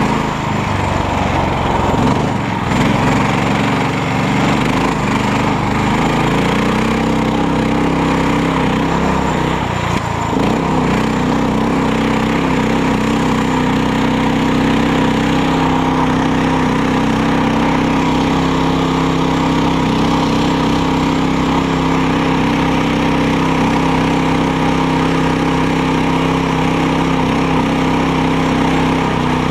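Karakat swamp buggy's small engine running under way. Its pitch shifts over the first ten seconds, dips briefly about ten seconds in, then holds steady.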